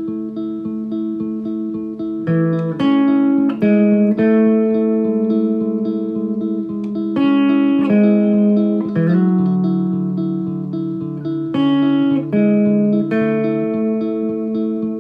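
Background music: a plucked guitar tune with quickly repeated picked notes.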